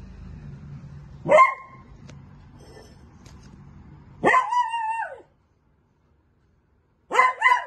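Beagle puppy barking: one sharp bark about a second in, a longer drawn-out bark a few seconds later that falls in pitch at its end, and two quick barks near the end.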